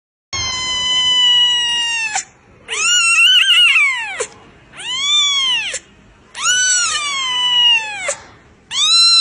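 Young kitten meowing: five loud, high-pitched cries, each a second or two long, most rising and then falling in pitch.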